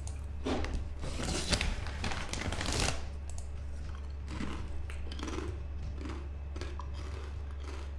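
Rustling handling noise, loudest in the first three seconds, then softer scattered clicks, all over a steady low hum.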